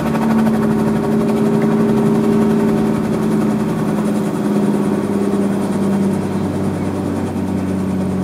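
Robinson R44 helicopter flying off, a steady engine and rotor drone whose pitch sinks slightly partway through.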